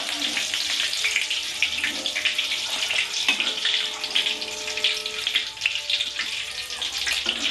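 Hot oil sizzling and crackling steadily in a kadai as battered paneer pakoras finish deep-frying, with a slotted spoon stirring through the oil.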